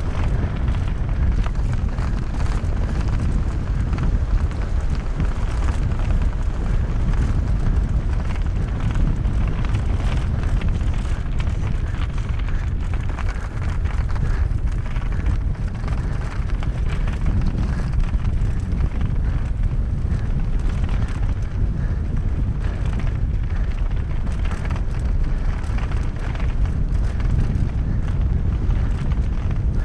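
Wind rushing over the camera microphone on a fast mountain-bike descent, with continuous tyre noise on the dirt trail and frequent rattles and knocks from the bike over rough ground.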